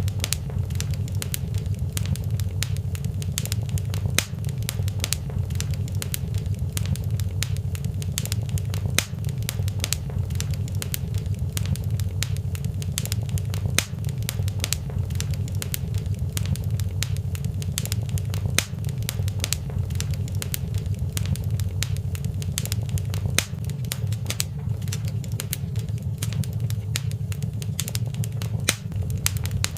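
Wood fire burning in a fireplace: a steady low rumble of flames with frequent sharp crackles and pops scattered all through.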